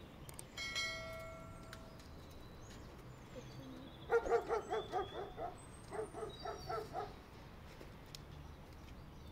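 A dog barking in two quick runs of yaps, about five a second, with small birds chirping faintly above it; a single held pitched call sounds briefly about a second in.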